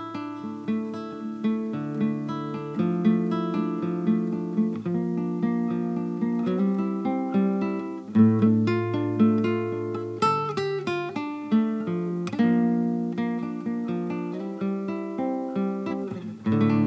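Acoustic guitar music: a steady run of plucked and strummed notes over a low bass line, growing louder about eight seconds in.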